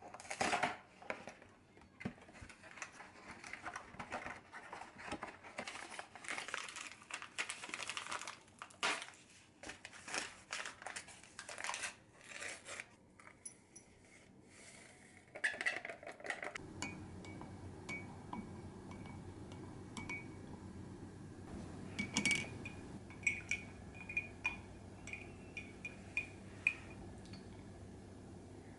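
Cardboard cocoa box being opened and a hot cocoa mix packet crinkled and torn, followed by powder poured into a ceramic mug. From about halfway, a spoon clinks repeatedly against the ceramic mug over a low steady hum.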